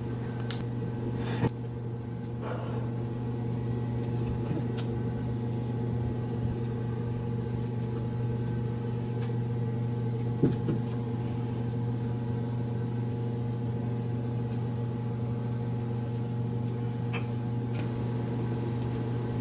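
A steady low electrical hum, with a few faint small clicks and taps from handling small parts.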